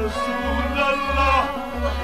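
Sufi devotional music: a melodic line that bends in pitch over a steady low drum beat, roughly one and a half beats a second.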